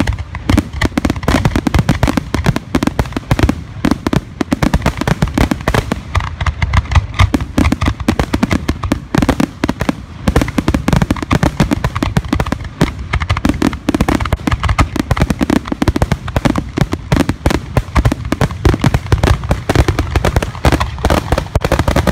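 Fireworks grand finale heard from close beneath: a dense, unbroken barrage of aerial shell bursts and mortar launches, so rapid that the reports run together into one loud, rumbling din.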